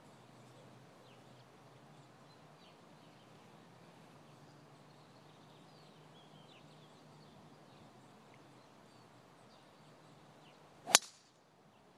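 A driver striking a golf ball off the tee: a single sharp crack near the end, after a long stretch of faint outdoor background.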